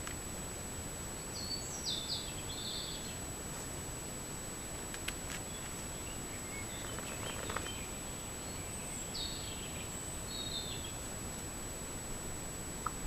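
Steady hiss of a camera-trap microphone with a thin, high, constant whine, and small forest birds chirping a few times, near the start and again about two-thirds of the way through.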